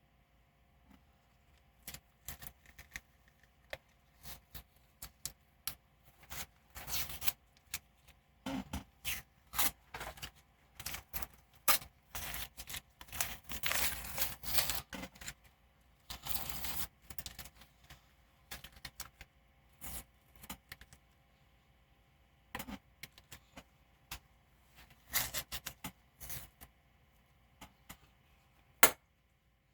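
Irregular scraping, rustling and tearing noises from hand work on a car wheel, in uneven bursts that thicken through the middle, with one sharp click near the end.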